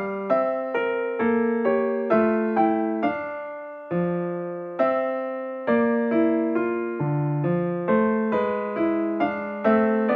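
Background music: a solo piano or keyboard piece, notes and chords struck at a steady pace, each fading away before the next.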